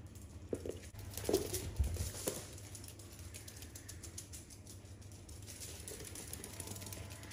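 Small terriers' claws clicking and pattering on a laminate floor as they run and play, busiest in the first three seconds.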